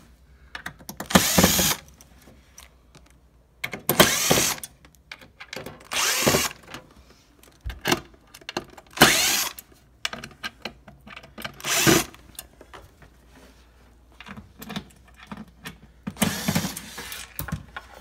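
Cordless screw gun with a Phillips bit backing screws out of a dishwasher door panel, run in about six short bursts, with small clicks and handling between them.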